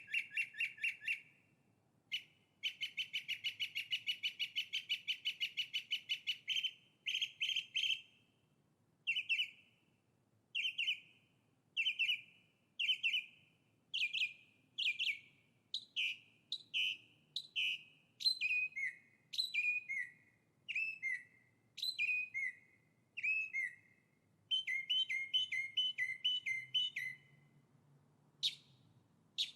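A songbird singing. It opens with fast trills of about ten notes a second, then gives a slower series of separate whistled notes, many sliding downward, about one a second, with a brief quick run of repeated notes near the end.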